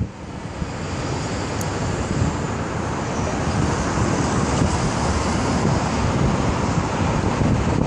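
Road traffic noise that swells over the first couple of seconds and then holds steady, with wind buffeting the microphone.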